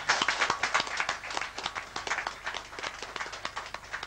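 A small group of people clapping, the separate claps distinct, in applause after a cheerleaders' chant.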